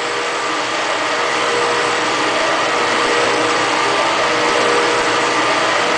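Valve seat machine running steadily, its spindle turning a three-angle seat cutter into the valve seat of a cast-iron Ford 460 cylinder head: an even mechanical whir with a steady hum tone.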